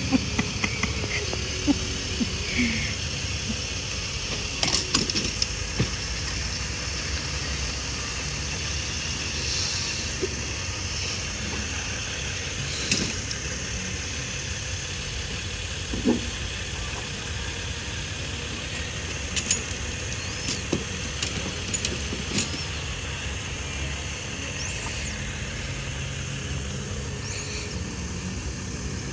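Steady low motor-vehicle drone with a steady high hiss above it, broken by scattered knocks and rattles as gear is loaded onto a wire folding cart.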